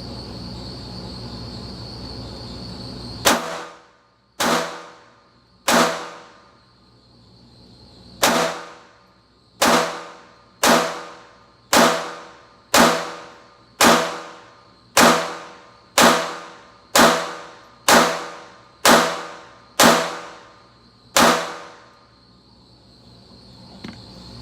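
Taurus TX22 .22 LR pistol firing a full magazine of CCI Mini Mag hollow points: sixteen sharp shots. The first three are slower, and the rest come at a steady pace of about one a second. Each crack trails off in a short echo.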